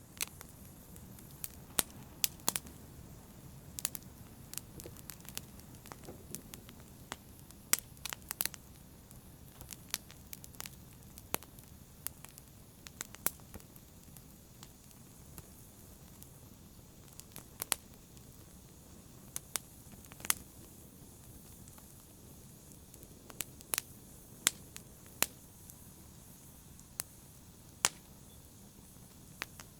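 A fire in a brazier crackling: sharp, irregular pops and snaps over a low, steady rumble of flame.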